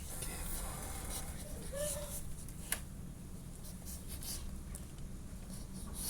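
A dog scratching and scuffling, with a sharp click a little under three seconds in.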